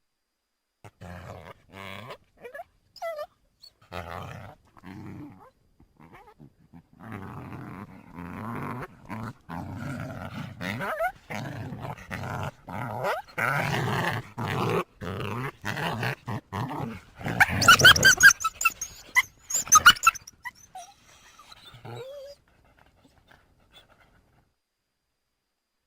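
Coyotes calling: broken short calls, then a denser run of rough, low calls. About two-thirds of the way through comes a loud burst of high-pitched calls, after which the calling dies away.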